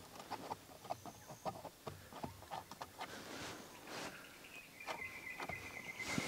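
Birds calling at dusk, mixed with short scraping dabs of a palette knife on canvas. About three-quarters of the way in, a high, steady trill starts and keeps going.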